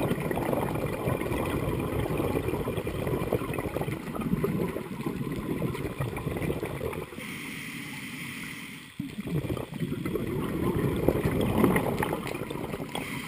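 Underwater sound of a scuba diver's open-circuit breathing: crackling, gurgling exhaust bubbles from the regulator, broken about seven seconds in by a steadier hiss of an inhale before the bubbling returns.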